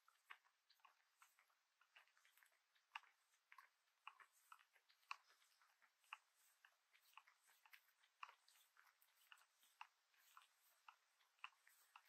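Faint, irregular clicking and ticking, several short clicks a second, with no steady rhythm.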